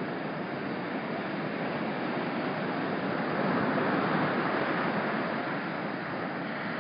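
Ocean surf breaking and washing up the beach, a steady rush that swells as a wave comes in about three and a half seconds in.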